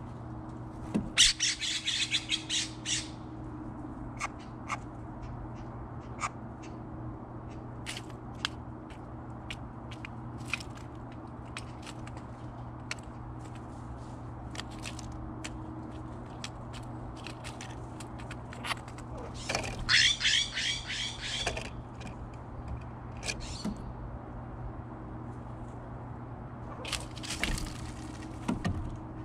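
Jays giving harsh, rasping runs of rapid calls three times: about a second in, about two-thirds of the way through, and near the end. Scattered sharp clicks fall between the calls over a steady low hum.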